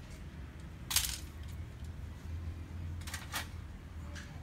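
Hard plastic-and-metal knocks as a laser printer's fuser unit is handled and worked free of the printer frame. There is one sharp knock about a second in, then two quick clicks about three seconds in.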